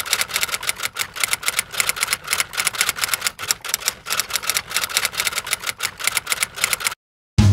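Typewriter keys clicking in a fast, even run of strokes, about eight a second, that stops suddenly near the end.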